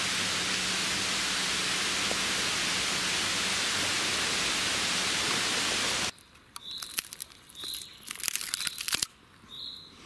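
A steady, even rushing noise that cuts off suddenly about six seconds in. After it come rustling and scraping clicks, with short bird chirps about once a second.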